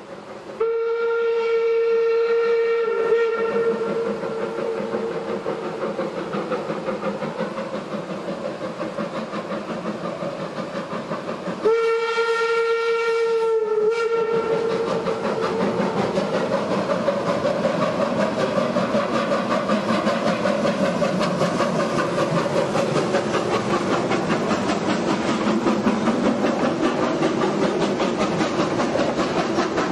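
Wood-burning steam locomotive Eureka & Palisade No. 4 sounds two long blasts on its steam whistle, each one steady tone of about two and a half seconds, about nine seconds apart. After the second blast the train's running noise, with a fast even beat, builds as it approaches over the rails.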